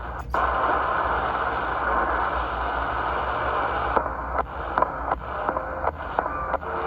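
CB radio receiver hissing with open-channel band noise; from about four seconds in, a run of sharp clicks and short steady tones as other stations key up and unkey.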